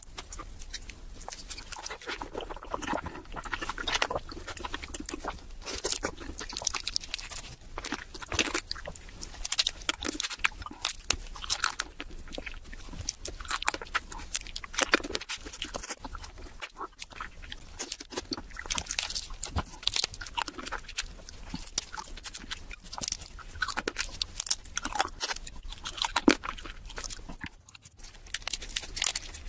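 Close-miked eating of raw marinated crab: irregular crunching and crackling of crab shell with wet chewing, many sharp clicks in quick succession.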